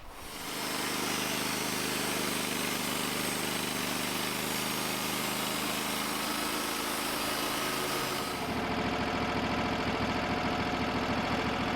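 Portable band sawmill running on its engine while the blade saws a board off a log, a steady engine note under a broad cutting hiss. About eight seconds in, the hiss stops and the engine note changes, as the cut ends.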